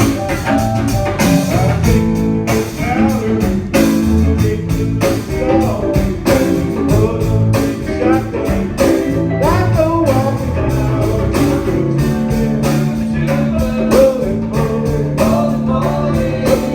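Live band playing a song: a singer over guitar, with regular drum hits.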